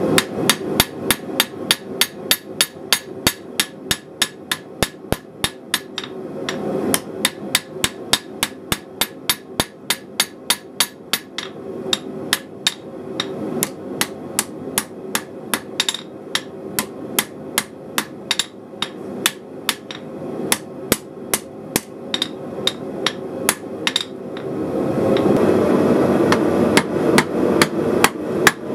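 Hand hammer striking red-hot knife-blade steel on an anvil, a steady run of sharp metallic blows about three a second with a couple of short breaks. A steady rushing noise runs underneath and grows louder near the end.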